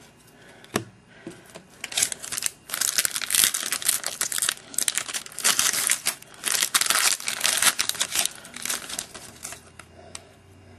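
A baseball card pack wrapper being torn open and crinkled in the hands, a burst of rustling and tearing that runs several seconds and dies down near the end.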